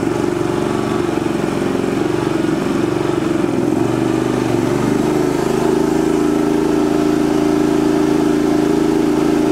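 Energizer eZV3200P portable inverter generator's engine running under a heavy load from a hairdryer. The engine note wavers at first, then settles into a steady, slightly louder drone about halfway through.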